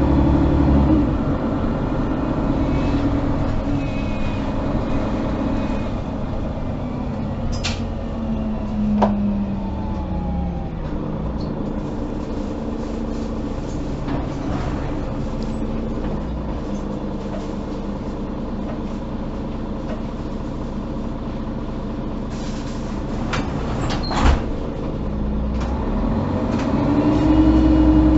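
Mercedes-Benz O530 Citaro city bus under way, heard from inside the passenger cabin: the diesel engine runs steadily, its note rising and swelling as the bus accelerates at the start and again near the end. A few sharp clicks are heard about nine seconds in and again later.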